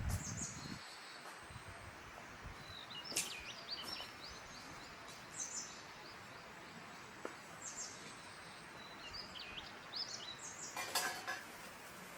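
Small birds chirping and trilling repeatedly in short high phrases over a steady outdoor hiss, with a couple of brief sharp clicks about three seconds in and again near the end.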